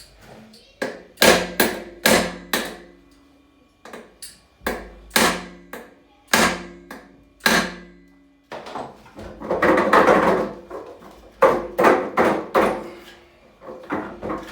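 Hammer blows on metal washing machine parts, struck in quick groups of three to five, each blow leaving a brief metallic ring. About nine seconds in there is a scraping, grinding noise that lasts a second or two before the blows resume.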